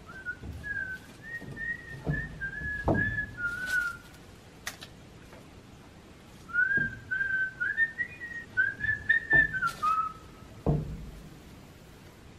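A person whistling a tune in two phrases of held, stepping notes, with a few dull knocks as a wooden door board is handled.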